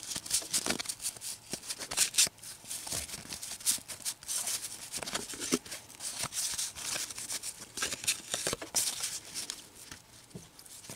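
Baseball cards being flipped off a stack one after another and dropped onto a pile: quick, irregular papery flicks and light slaps, several in a row with short gaps.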